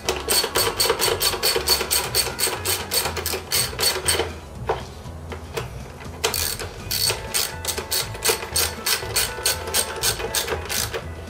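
Socket ratchet clicking in fast, even runs as it drives in the bolts of a lawnmower engine's sheet-metal air shroud. The clicking stops for about two seconds around four seconds in, then starts again.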